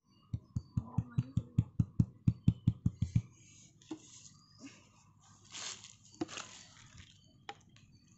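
Fingers tapping the cone of a Haxxorr subwoofer driver: a quick run of low thuds, about five a second, for three seconds. Then fainter scraping and a few clicks as the hand moves over the cabinet.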